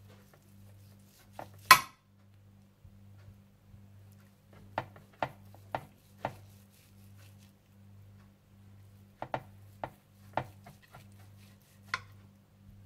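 Knife slicing a beef roast, its blade knocking and clicking against the board in about ten short, sharp strikes scattered through, the loudest about two seconds in, over a faint low hum.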